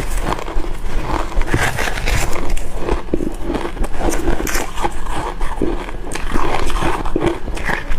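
Close-up biting into crushed and shaved ice: a dense, continuous run of crunches and crackles.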